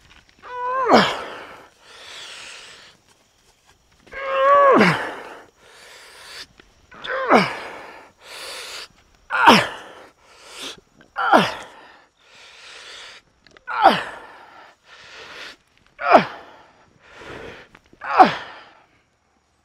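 A man's loud strained grunts of effort, about eight of them, each sliding down in pitch, with sharp breaths between, as he forces a frying pan to fold with his bare hands.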